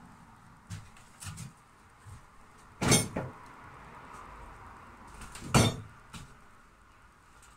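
Rummaging among tools: two loud, sharp clacks about three and five and a half seconds in, with a few lighter knocks around them.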